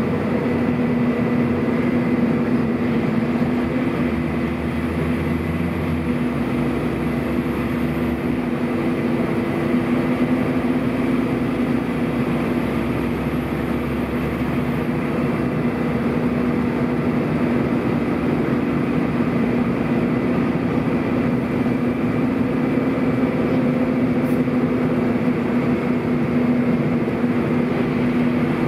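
Scania DC09 9.0-litre five-cylinder diesel of a Scania N230UB bus running steadily with its engine cooling fans on: an even drone with a thin, steady high tone above it.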